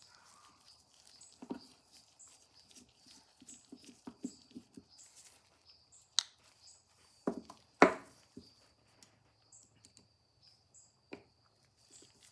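Light clicks and taps of small metal parts as a Victrola phonograph governor is taken apart by hand, its little screws and washers being handled, with a louder pair of knocks about seven to eight seconds in.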